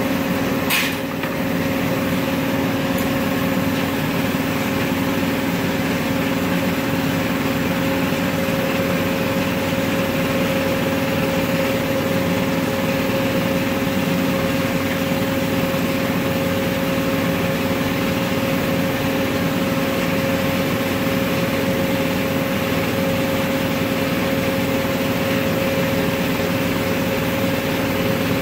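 Gas-fired glassblowing furnaces and their burner blowers running steadily: a constant rushing noise with a steady hum in it. A single sharp click sounds about a second in.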